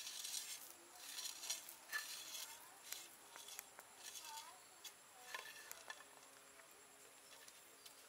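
Coarse salt crystals tipped from a spoon onto a flat grinding stone, pattering down in three short, hissy spills. A few light taps follow a little after halfway, as garlic cloves are set down on the stone.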